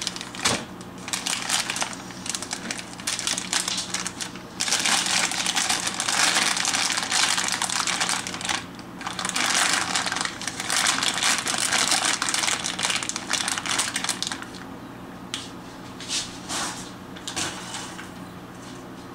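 Crinkling and rustling of something being handled close by, in two long stretches from about five to fourteen seconds in, with shorter rustles before and after, over a steady low hum.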